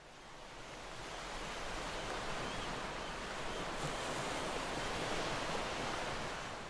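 Recorded sea sound: a steady wash of surf that fades in and fades out near the end.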